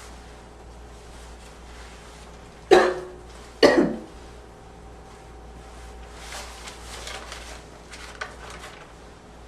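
A person's slight, wheezy barking cough: two sharp coughs about a second apart, the second breaking into a double hack. Fainter rough throat sounds follow a few seconds later.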